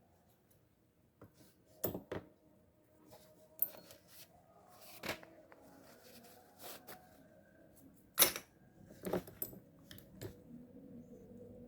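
Irregular clicks and clinks of small metal reel parts and tools being handled during the strip-down of a fishing reel, with the sharpest click about eight seconds in.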